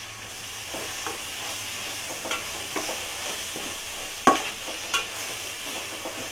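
Spoon stirring a sizzling masala of tomato paste, spices and curd in a pot: a steady frying sizzle with scattered scrapes and knocks of the spoon against the pot, the loudest knock a little over four seconds in.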